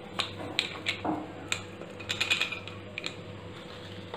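Small stainless steel mixer-grinder jar knocked and tapped against a bowl's rim to empty out ground peanuts: a run of irregular light clicks and taps.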